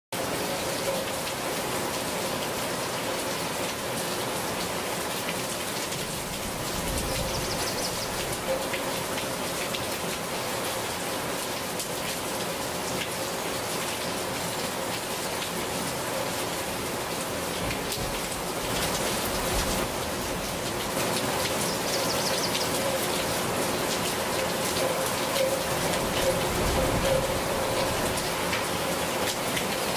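Steady rain falling on garden leaves: a dense, even hiss of rain with many sharp individual drop ticks.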